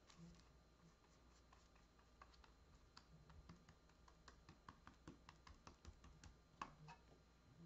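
Faint, irregular light ticks and scratches of a small painting tool working cold wax paint on paper along the edge of a wide metal scraper blade held flat as a straight edge.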